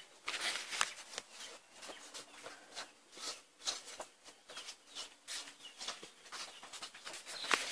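Footsteps and rustling on dry ground: a scatter of soft, irregular crunches and clicks.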